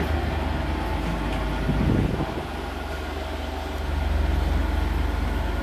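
Steady low rumbling hum of a train standing at the platform, heard from inside a carriage, with its diesel engine idling. There is a brief thud about two seconds in.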